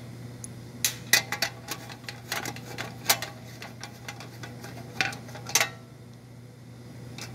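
Screwdriver working out the screws that hold sheet-metal gas burners in their bracket: a series of sharp metal clicks and clinks, the loudest about a second in, near three seconds and around five seconds. A steady low hum runs underneath.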